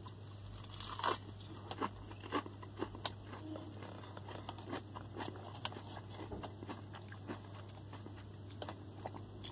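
A person biting into and chewing a beef burger with a crispy beef patty and onion rings: soft crunches and wet mouth clicks, strongest in the first three seconds, then quieter chewing.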